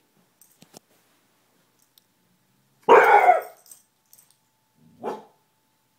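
Dog barking: one loud, sharp bark about three seconds in, then a shorter, softer, lower bark about two seconds later. The barks are alert barks at someone passing in the hallway outside the door.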